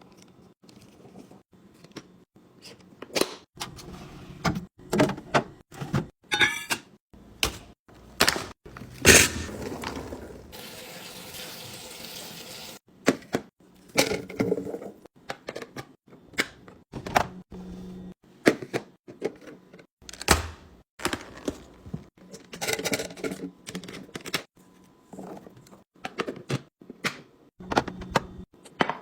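Food containers and packages being handled and set down during a fridge restock: a long series of knocks, clatters and thunks, with water running for a couple of seconds about ten seconds in.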